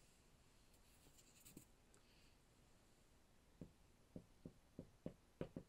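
Dry-erase marker writing on a whiteboard: a quick run of about eight short, faint strokes in the second half, after a few soft eraser wipes near the start.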